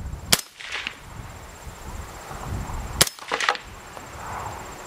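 Two suppressed shots from an AR-15-type rifle with an 18-inch barrel and a Dead Air Sandman-K suppressor, firing 77-grain 5.56 open-tip match rounds. The shots come about two and a half seconds apart, the first shortly after the start, each followed by a brief echo.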